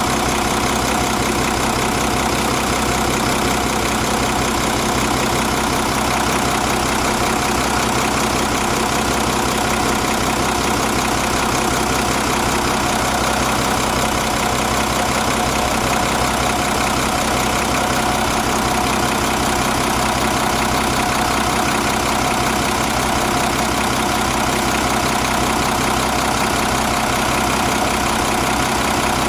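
Nissan FE6 inline-six diesel engine idling steadily.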